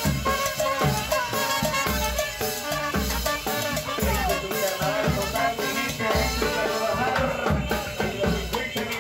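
Live street band playing a lively Latin dance tune: clarinets, trumpet, trombone and saxophone over snare drums, a cymbal and a bass drum keeping a steady beat.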